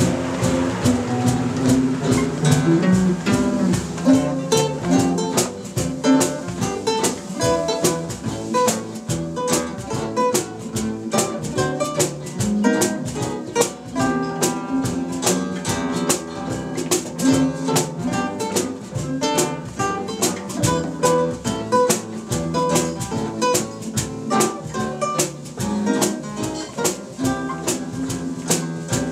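Two acoustic guitars and a violin-shaped electric bass playing an instrumental piece together: chords strummed in a steady rhythm, with picked single notes over them and a bass line underneath.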